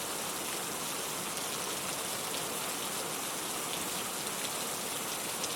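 Steady rain falling, a dense even hiss with scattered ticks of single drops landing on a surface.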